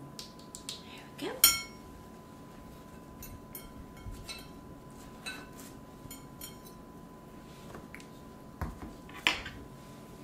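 A metal utensil clinking and scraping against a plate as a sandwich is put together. A sharp ringing clink comes about a second and a half in, and another comes near the end.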